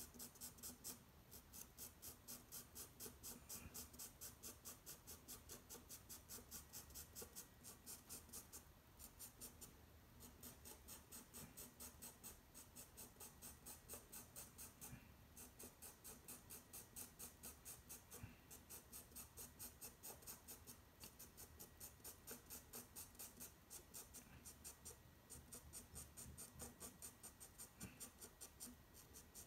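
Coloured pencil scratching across toned drawing paper in quick, even back-and-forth shading strokes, several a second, with a few short pauses.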